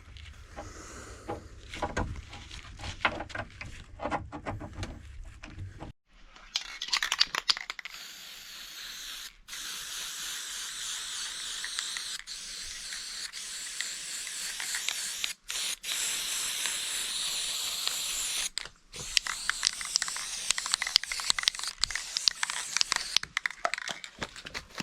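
Paint spraying onto a furniture surface: long steady hissing passes, each cut off briefly as the spray is released, after some seconds of knocks and handling clicks.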